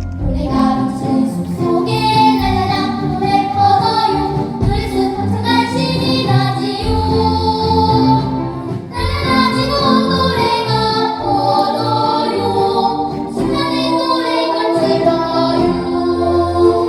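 Children's vocal ensemble singing a Korean children's song (dongyo) together, in phrases with short breaths between them.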